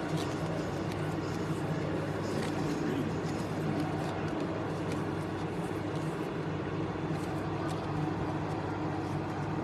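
Steady low background hum with faint, scattered soft rustles and ticks of baseball cards being handled and flipped through.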